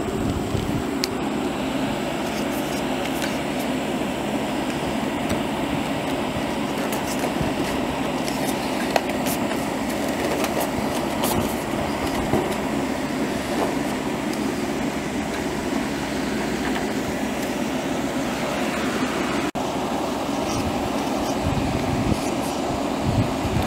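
A steady rushing background noise, with scattered light clicks and taps from metal gutter sections and an end cap being handled and pressed together.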